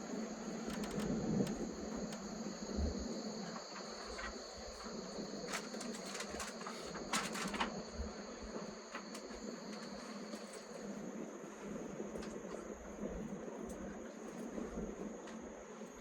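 Train running, heard from inside the carriage: a steady low rumble with two steady high-pitched tones. The lower of the two tones stops about eleven seconds in, and a few brief clicks come around the middle.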